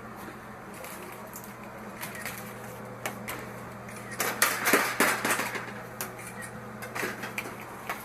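Hard objects clattering and clinking as they are handled, with a dense burst of clatter about four to five and a half seconds in, over a steady low hum.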